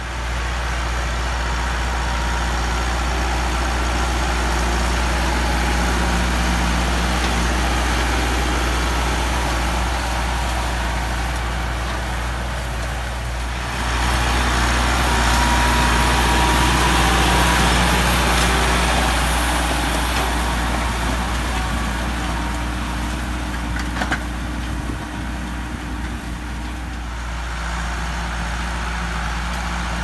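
Massey Ferguson 375's four-cylinder diesel engine running steadily under load while pulling a disc harrow through rice stubble. It grows louder about halfway through as the tractor passes close by, then eases off.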